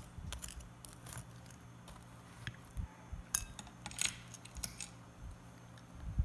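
Metal fork clinking and tapping against a ceramic plate while a piece of fried banana is picked up: a scatter of sharp clicks, loudest about three and four seconds in.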